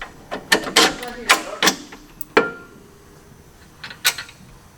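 A handful of sharp metal clicks and clanks over the first two and a half seconds, then one more about four seconds in: hand tools and suspension parts being handled.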